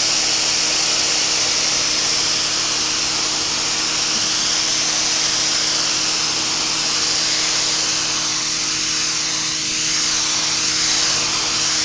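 AR Blue Clean AR383 1900 PSI electric pressure washer running: a steady motor-pump hum under the hiss of the water jet spraying a concrete sidewalk.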